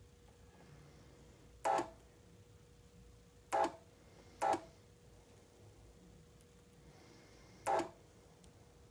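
A homemade solder feeder's small geared motor whirs in four short bursts, each a fraction of a second long, as the push button on its pen feeds solder to the iron. A faint steady hum sits underneath.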